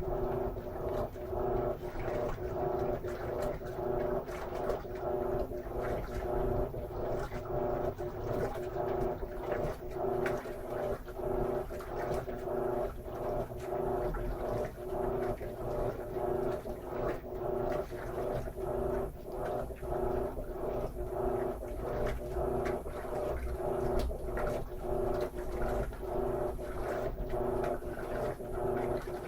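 Electrolux LM13Q top-load washing machine agitating a load of jeans: a steady motor hum with rhythmic swishing and sloshing as the agitator turns back and forth in the water.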